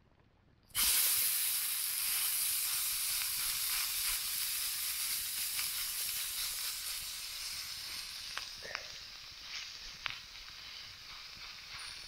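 Minced-meat beefsteak patty sizzling hot over a campfire. The sizzle starts suddenly about a second in and slowly dies down.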